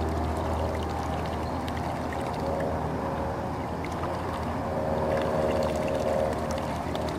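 A motor running steadily, its whine wavering slightly in pitch, over a low hum.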